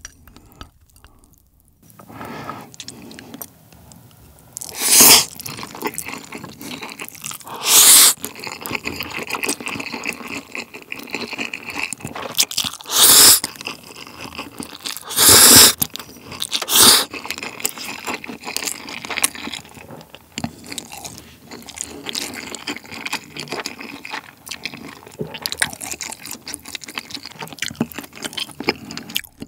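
Close-miked eating sounds: chewing of stir-fried ramen noodles and sauced chicken, broken by about five loud, brief noodle slurps, the first about five seconds in and the last around seventeen seconds in.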